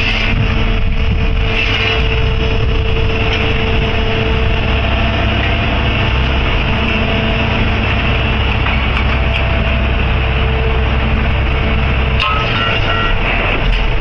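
Heavy diesel machinery engine running steadily, with a few short high beeps near the end.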